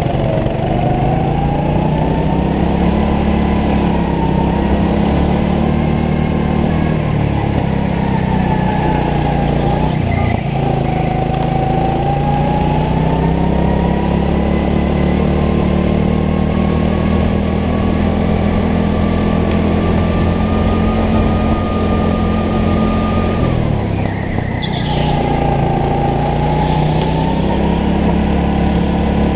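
Go-kart engine running at speed, heard from the driver's helmet: a steady low drone with a whine that rises and falls in pitch, easing briefly about ten seconds in and again near the end.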